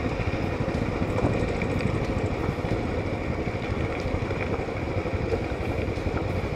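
Royal Enfield Classic 500's single-cylinder engine running steadily in first gear, engine braking down a steep dirt track.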